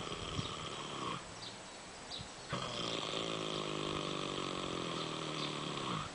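An animal snoring in its sleep: one rasping breath ends about a second in, then after a short pause a longer, droning snore lasts about three and a half seconds.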